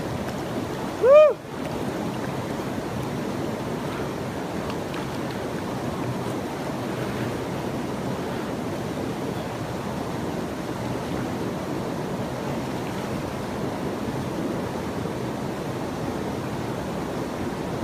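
Steady rush of moving water. About a second in, one short, loud call rises and falls in pitch.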